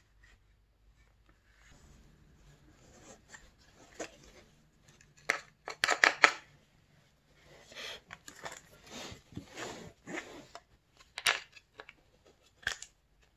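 Shop rag rubbing over a plastic tail light housing to wipe grime off it, in uneven scrubbing strokes, with a few sharp clicks and knocks as the housing is handled, the loudest about six seconds in.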